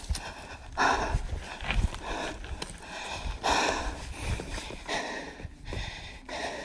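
A person breathing hard close to the microphone: noisy breaths about once a second.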